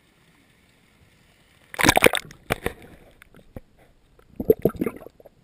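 Water splashing and sloshing against a camera at a pool's surface: a loud splash about two seconds in, a few separate knocks and drips, then a second burst of sloshing near the end.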